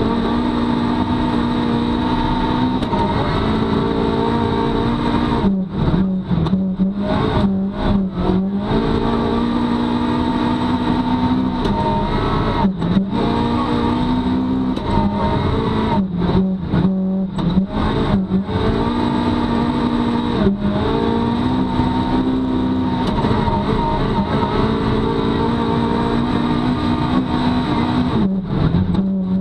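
Rally car engine heard from inside the cabin, held at high revs at full speed on a snowy stage. It dips briefly and changes pitch several times as the driver lifts off and changes gear.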